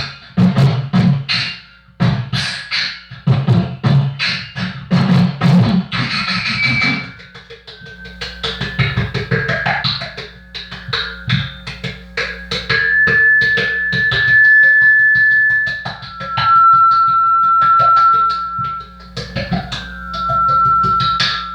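Instrumental break of a homemade funk/rap track: a fast percussive beat for about the first seven seconds, then a sparser backing with a steady low hum, scattered clicks and long held high notes.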